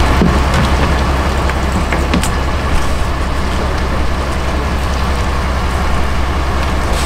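Fishing boat's engine running steadily with a low rumble and hiss, with a few light knocks and rattles in the first three seconds as iced fish slide out of a tipped cooler onto the deck.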